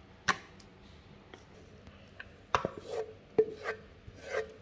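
A serving utensil knocking against plastic plates and a pot as cooked spaghetti is lifted out and portioned. There is one sharp knock near the start, then a run of knocks from about halfway, several with a short hollow ring.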